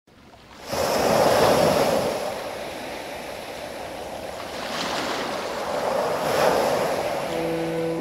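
Ocean waves breaking and washing up over a sandy beach, coming in under a second in and surging twice. Soft music tones come in near the end.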